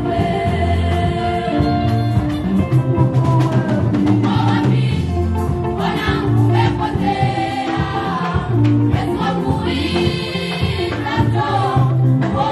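Gospel choir singing a Swahili song in harmony, voices amplified through handheld microphones, over a steady low bass line.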